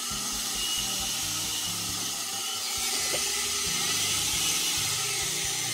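Sherline lathe's rebuilt 90 V DC motor running the headstock spindle, a steady hiss with a low hum. Its speed holds even now that the oscillation was cured by cleaning the speed-control potentiometer with contact cleaner.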